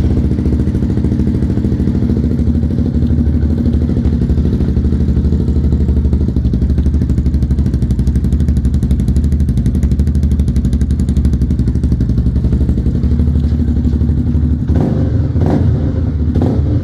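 Honda CB300's single-cylinder four-stroke engine idling steadily through a Roncar TRS aftermarket exhaust, just after being started. Its note changes briefly a few times near the end.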